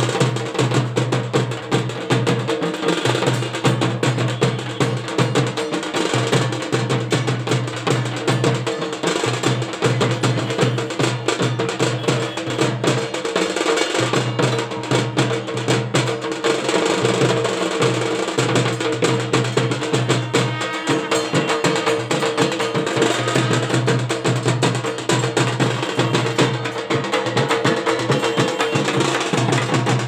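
Dhak drums, Bengali laced barrel drums, beaten with thin sticks in a fast, continuous, dense rhythm.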